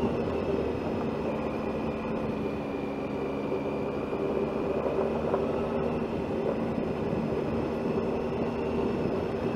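Motorcycle engine running at a steady speed, with wind and road noise, while riding.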